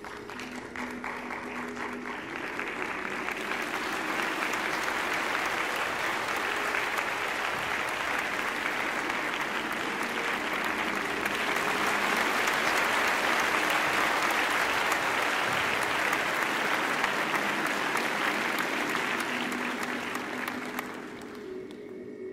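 Theatre audience applauding, joined by the performers clapping on stage at the curtain call. The applause builds over the first few seconds, is loudest around the middle and fades out near the end.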